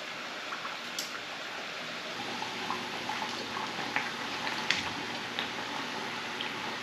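Breaded chicken pieces deep-frying in hot canola oil in a pot, a steady sizzle with small crackling pops. A few sharp clicks of metal tongs against the pot, the loudest a little under five seconds in.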